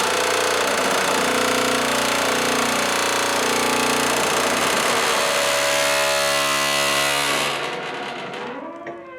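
Rusted steel shipping container door being worked, its metal grinding and groaning with many squealing tones. It tails off about three-quarters of the way through, with a few last squeals near the end.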